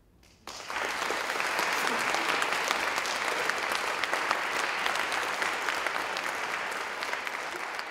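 Audience applauding: dense, steady clapping that breaks out about half a second in after a brief hush.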